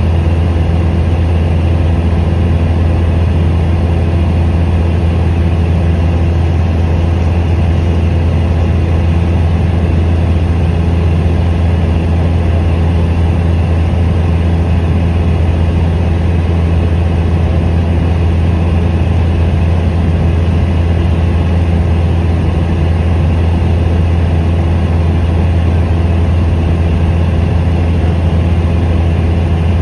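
Steady drone of a high-wing light aircraft's engine and propeller in cruise, heard inside the cabin: a loud, unchanging low hum throughout.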